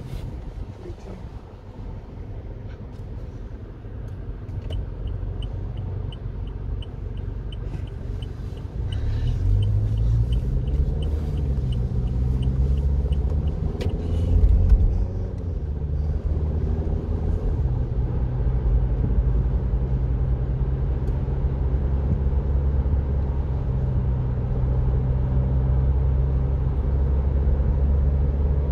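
Car engine and road rumble heard from inside the cabin as the car pulls away and accelerates, the engine note rising in pitch about a third of the way in, then settling into steady cruising. A light ticking, about twice a second, runs through the first half.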